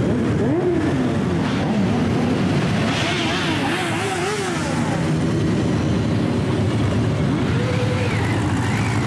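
A column of motorcycles riding past one after another, many engines running at once, their pitch rising and falling as each bike goes by.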